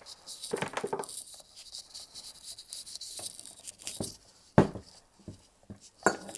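Handling noises of a soldering station unit being moved about: scattered small clicks and taps, with one sharp knock about four and a half seconds in.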